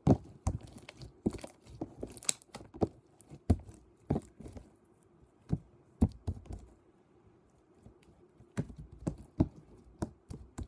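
Hands kneading and pressing glitter slime on a tabletop: irregular sticky clicks and small pops as the slime is squashed, folded and pulled off the surface. The clicks come thick at first, thin out about two-thirds through, then pick up again.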